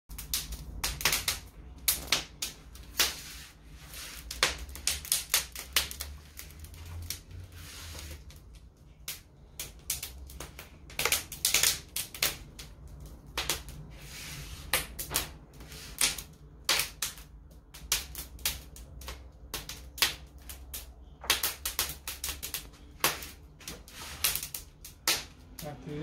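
Wood fire crackling and popping in an open brick hearth: sharp, irregular cracks, several a second, over the low steady hum of the chimney extractor fan.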